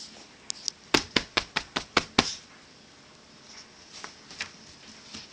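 A quick run of sharp taps, about seven loud ones at roughly five a second lasting just over a second, then a few faint ticks.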